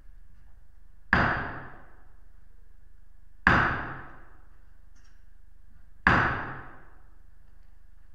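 Three single hammer blows about two and a half seconds apart, each ringing out briefly in the church's echo.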